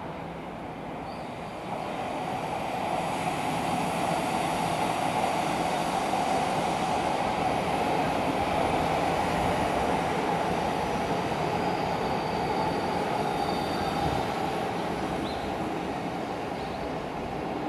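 Odakyu Line electric commuter train running past on elevated track, a steady rumble of wheels on rails that swells about two seconds in and slowly fades toward the end. A faint high wheel squeal comes in briefly around the middle.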